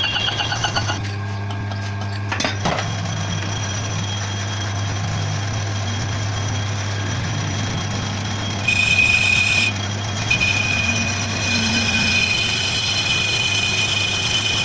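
Metal lathe turning a car brake disc: a steady motor hum, with a high, steady whine joining about nine seconds in, breaking off briefly and then continuing.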